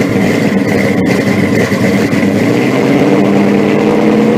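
A car engine running loud and steady, with a low, even drone.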